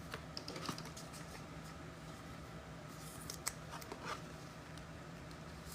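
Faint rustling and light clicks of trading cards and packs being handled and shuffled, over a low steady hum.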